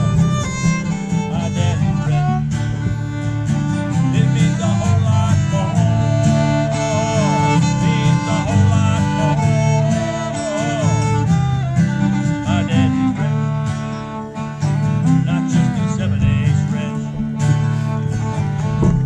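Live acoustic jam: several strummed acoustic guitars with a fiddle playing a sliding, wavering melody over the chords.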